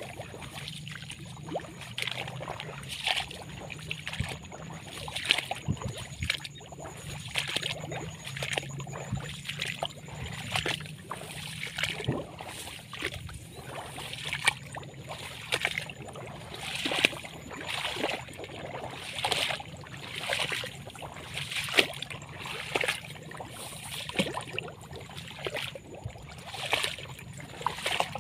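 Footsteps wading through a wet rice paddy: a splashing swish about once a second, over a faint steady low hum.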